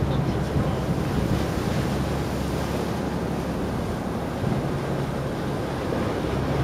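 Wind buffeting the microphone and open-ocean waves washing past a boat under way, with the boat's engine humming low and steady underneath.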